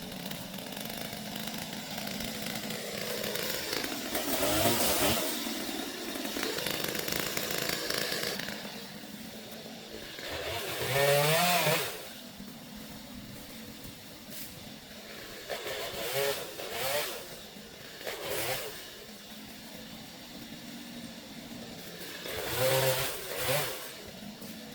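Gas chainsaw revving up and down in several separate bursts between steadier running, as it cuts ice-laden tree limbs.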